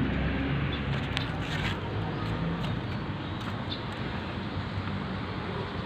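Honda CBR250 motorcycle engine idling steadily, a low rumble with a few light ticks.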